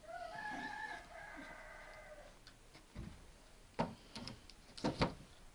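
A rooster crows once, a call of about two seconds that drops away at the end. A few sharp knocks and a low thud follow in the second half and are the loudest sounds.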